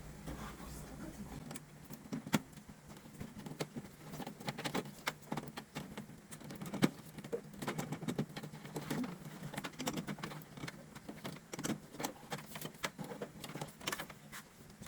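Irregular clicks, taps and light knocks of an air conditioner's plastic and metal parts being handled and taken apart, with two sharper knocks about two seconds and seven seconds in, over a faint steady low hum.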